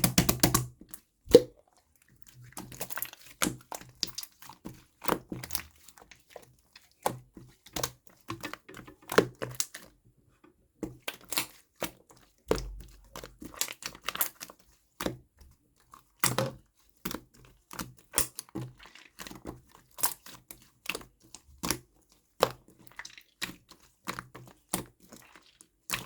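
Irregular clicks, taps and crinkling of small objects being handled, with a few louder knocks, typical of a drink being prepared by hand.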